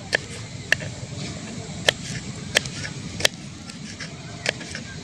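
Kitchen knife slicing garlic cloves on a wooden chopping board: six sharp taps of the blade striking the board, unevenly spaced, about one a second.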